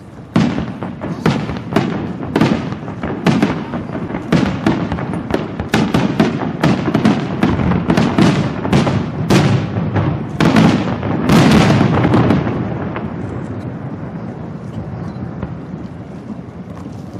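Aerial fireworks shells bursting in quick succession, about twenty sharp bangs over some twelve seconds, thickest near the end. The bangs then die away into a fading rumble.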